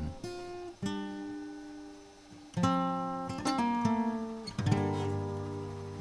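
Background music on acoustic guitar: chords strummed and left to ring, a new chord every second or two.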